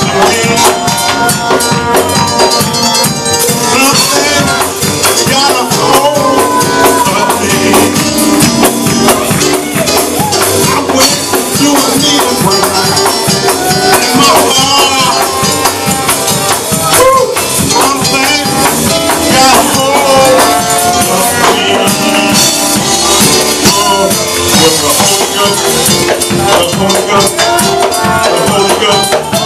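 Loud, fast church praise-break music: rapid drumming and shaking tambourines under a mix of singing and shouting voices.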